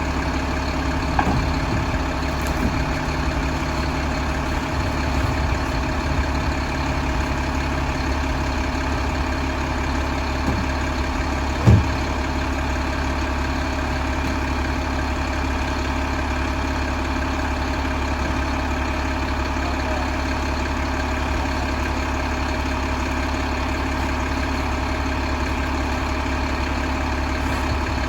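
Mack LEU garbage truck's diesel engine idling steadily, with one sharp bang about twelve seconds in.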